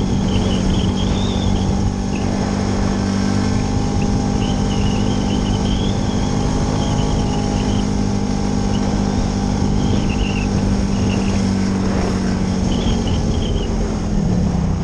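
TGB Blade 550 4x4 ATV engine running steadily under way. Its pitch wavers near the end as the revs change.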